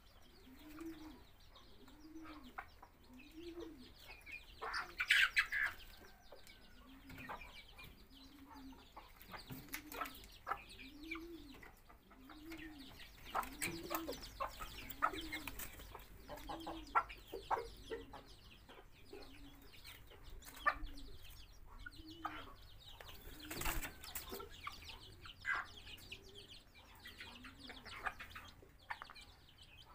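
Chickens clucking: a hen's low clucks repeat about once a second, among short higher peeps and pecking noises from the flock and chicks, with a few louder sharp sounds standing out.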